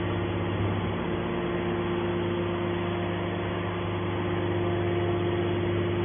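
Hydraulic power unit of an HBM 200 scrap metal baler running with a steady hum while the hydraulic lid cylinder swings the baler's top lid open.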